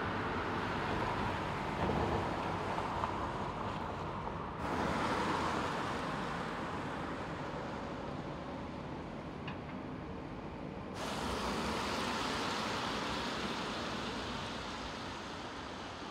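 Mercedes-Benz EQA electric SUV driving by on the road, heard mainly as tyre and road noise, with the sound changing abruptly about four and a half and eleven seconds in.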